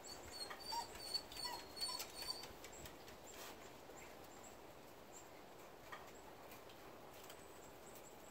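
A dog whimpering in several short, high-pitched squeaks over the first two or three seconds, then falling quiet.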